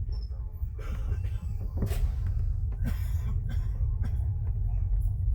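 Steady low rumble inside a moving train carriage, with scattered clicks and knocks.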